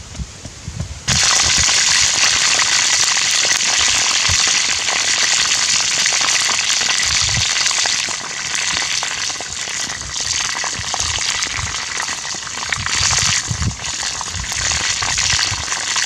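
A few soft thuds of a blade digging into soil, then, about a second in, a loud steady sizzle of chicken pieces frying in a pan of hot oil, with crackling and spitting throughout.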